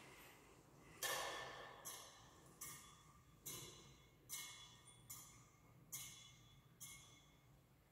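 Thurible swung on its chains to incense the Gospel book: about eight bright metallic clinks, a little under a second apart, each ringing out briefly.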